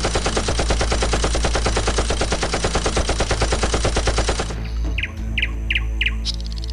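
Sustained automatic machine-gun fire sound effect: rapid, evenly spaced shots for about four and a half seconds, then stopping abruptly, followed by four short high pings.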